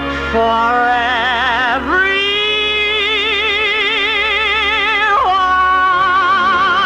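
A woman's solo voice singing the final held notes of a ballad with wide vibrato. About two seconds in she slides up to a long high note, then drops to a lower held note near the end.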